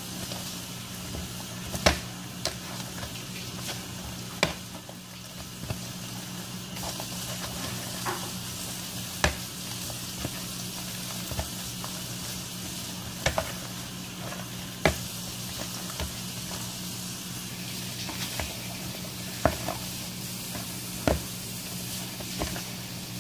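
Hands kneading soft yeast dough in a plastic bowl: irregular sharp knocks and slaps of hand and dough against the bowl every second or two. A steady hiss and a low hum run underneath.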